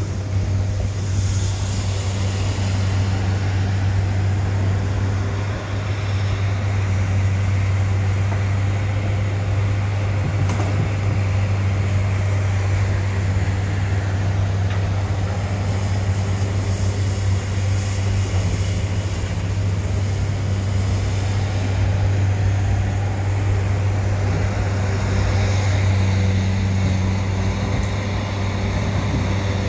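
A slow-moving Canadian Pacific double-stack container train rolling past, with a steady low engine drone.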